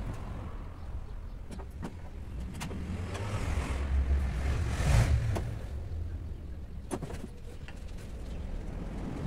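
Work noise from fitting window glass into a 1961 Scania 75 truck cab: scattered light clicks and knocks, and a louder rubbing swell about five seconds in, over a low rumble.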